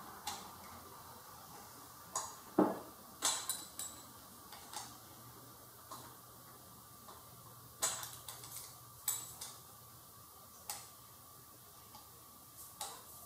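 Irregular small metallic clicks and clinks of a hand wrench on the carburetor's mounting nuts as they are tightened a fraction of a turn at a time.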